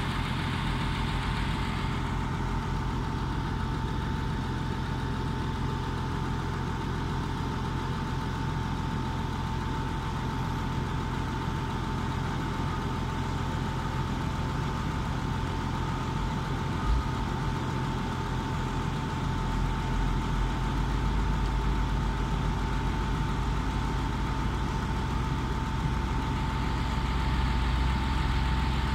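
Komatsu D85E-SS bulldozer's diesel engine idling steadily, with a thin steady whine over it. There is a single knock a little past halfway, and the low engine sound grows louder over the last third.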